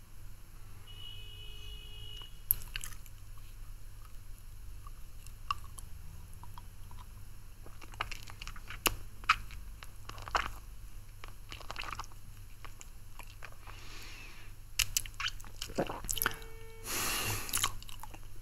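Close-miked mouth sounds of a man sucking on a hard-candy lollipop: scattered wet clicks and smacks of the candy against lips and teeth, growing busier partway through, with a louder, longer wet noise near the end.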